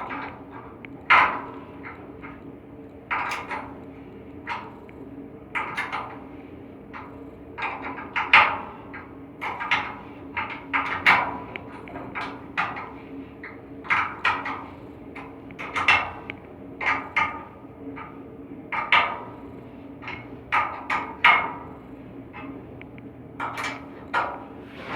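Irregular metallic knocks and clanks of hand tools working on an air handling unit's blower during a V-belt change, about one or two a second, with a low steady hum of running machinery underneath.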